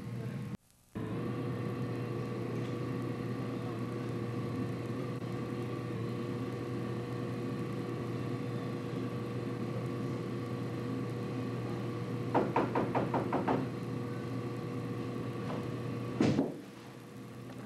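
Knuckles rapping on a door, a quick run of about eight knocks about twelve seconds in, over a steady hum with a few held tones. The sound cuts out for a moment under a second in, and near the end there is one brief louder burst, after which it goes quieter.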